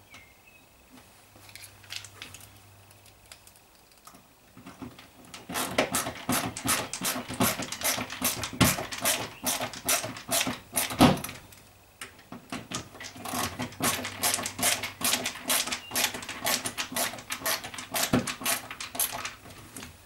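A screwdriver driving in the two screws of a washing-machine door lock: two runs of rapid clicking, each lasting about six seconds, with a short pause between.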